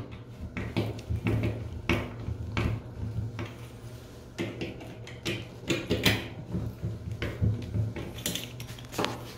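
Scattered small metallic clicks and taps from a wobbly door lever handle: a screwdriver working the set screw in its rosette, and the handle being moved by hand.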